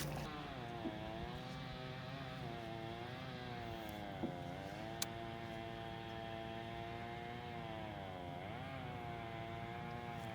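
Boat motor running at low speed, its pitch sagging and rising again several times. Two sharp clicks come near the middle.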